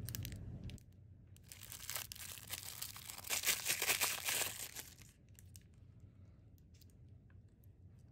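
Thin clear plastic bag crinkling and tearing as a replacement lithium-polymer battery pack is unwrapped, loudest between about two and five seconds in, then faint handling clicks.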